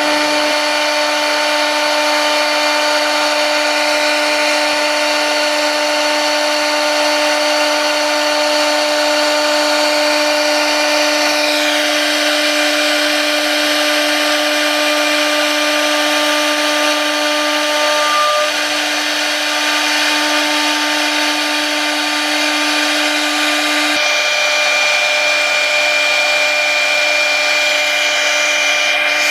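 CNC router spindle running at speed, its end mill cutting a slot through a compact laminate sheet: a steady whine over a continuous cutting hiss. The tone shifts slightly about twelve seconds in, and a higher whine comes in about twenty-four seconds in.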